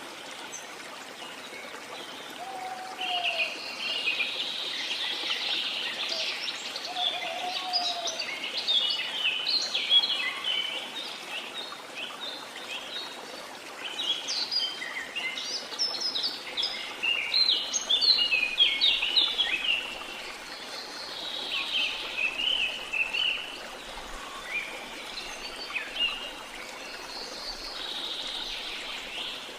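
A chorus of many birds chirping and calling in dense flurries that come and go, over a steady rush of water.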